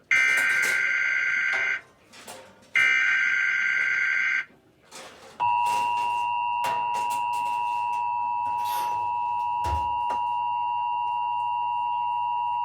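Emergency Alert System tones from a TV broadcast. First come two SAME header data bursts, harsh digital bursts of under two seconds each. From about five seconds in, the steady two-tone EAS attention signal holds for about eight seconds, marking the start of an Amber Alert.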